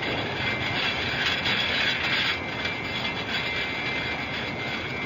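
Factory machinery running steadily, a noisy whir with a constant high whine, swelling slightly for a second or so.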